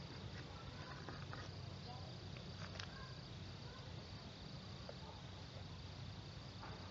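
Faint outdoor ambience of insects chirring steadily, with a low rumble underneath and a few faint ticks.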